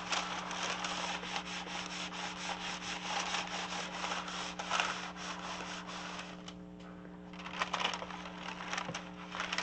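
A clothes iron sliding back and forth over baking parchment paper, a repeated papery rubbing and scraping. It eases off briefly about two-thirds of the way in, then the parchment rustles as it is lifted and handled.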